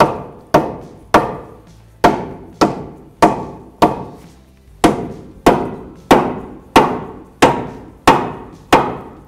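Rubber mallet striking the aluminium front lower control arm in a steady run of sharp knocks, about one and a half blows a second, driving the ball joint stud up into the steering knuckle.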